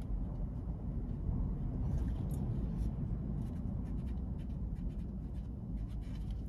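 Ballpoint pen writing on a small card, faint short scratching strokes, over a steady low rumble.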